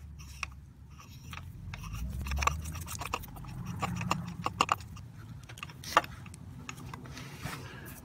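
Light metal clicks and scrapes of a spark plug socket and extension turned by hand, threading a new spark plug into the cylinder head of a Honda J35 V6, with one sharper click about six seconds in over a low rumble of handling noise.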